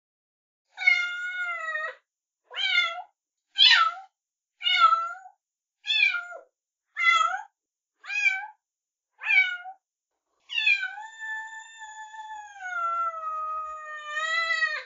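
Kittens meowing: about eight short meows roughly a second apart, then one long drawn-out meow that slowly falls in pitch.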